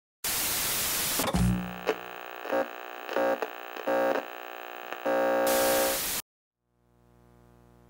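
A burst of white-noise static, then about four seconds of music: a sustained chord with several short accented hits. Another burst of static cuts off abruptly, followed by a faint steady hum.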